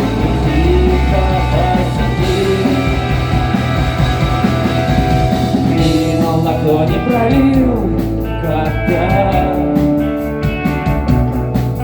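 Rock band playing live: drums, bass and guitars, with a gliding melodic line over the top and no sung words. About halfway through the cymbals thin out to an even, repeating tapping pattern.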